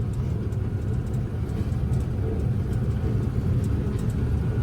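Combine harvester running while harvesting, a steady low engine and machinery rumble heard from inside the cab.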